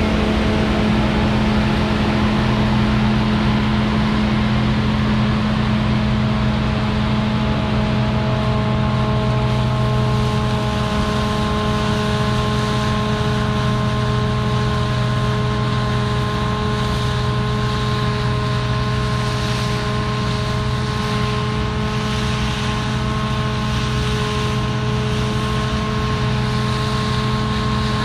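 Claas Lexion 430 combine harvester running under load while threshing rapeseed: a steady diesel drone with several constant whining tones. A higher whine comes in more strongly about a third of the way through, and the whole sound eases slightly as the machine moves away.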